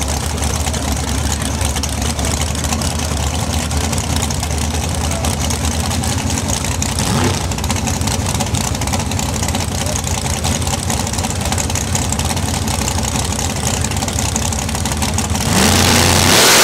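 Drag-race car engines idling loudly at the starting line, with one brief rev about seven seconds in. About a second before the end, a sudden much louder full-throttle launch.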